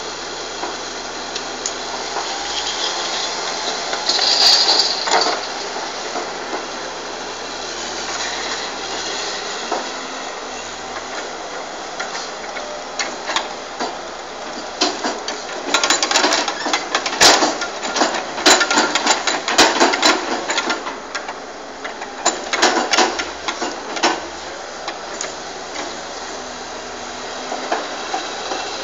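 Caterpillar tracked log loader's diesel engine running steadily, with a run of sharp knocks and clatter in the middle as its grapple handles logs.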